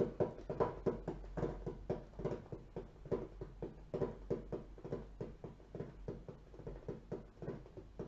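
Playing cards being handled on a table: a quick, irregular run of light clicks and taps, several a second.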